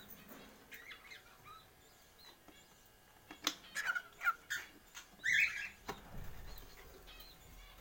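Birds calling: a quick run of short, sharp chirps about halfway through, the last and loudest a little before the end.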